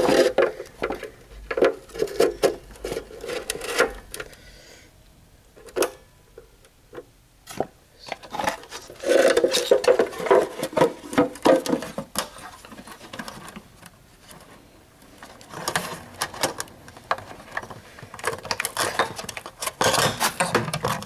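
Handling noises: irregular clicks, rattles and rubbing of plastic parts as a replacement turn-signal bulb and its socket are fitted and plugged back into the light housing. The noises come in spells with a couple of quieter gaps.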